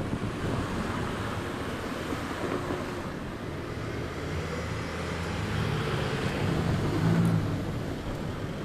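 Outdoor road traffic with wind on the microphone: a steady rumble that swells to its loudest about seven seconds in as a vehicle goes by.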